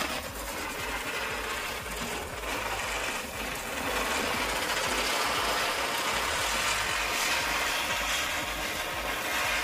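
Lit ground firework spraying sparks, a steady fizzing hiss that swells a little over the first few seconds and then holds.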